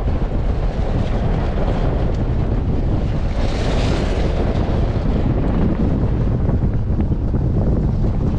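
Wind buffeting the microphone at an open window of a 4x4 driving on a gravel road, mixed with the vehicle's steady road and engine rumble. A brighter hiss swells and fades about halfway through.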